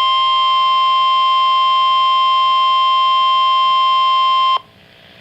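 NOAA Weather Radio warning alarm tone: a single loud, steady high tone with fainter overtones, alerting listeners that a warning broadcast follows. It cuts off suddenly about four and a half seconds in, leaving faint radio hiss.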